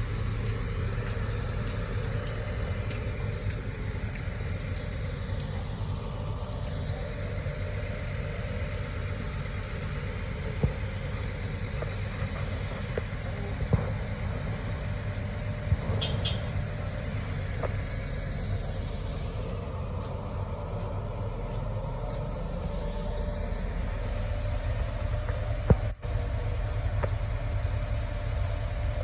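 Diesel engine of a Volvo EW205 wheeled excavator idling steadily while it is loaded onto a truck, with a few sharp knocks, the loudest near the end.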